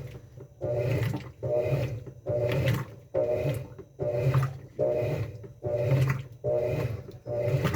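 Top-loading washing machine agitating: the motor hums in short strokes about every 0.7 seconds, with water swishing on each stroke and brief pauses between.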